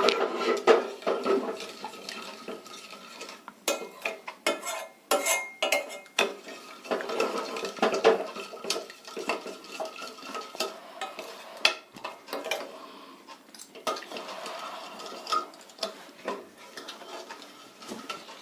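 A spoon stirring a pan of sugar syrup with spices, clinking and scraping against the pan in irregular strokes.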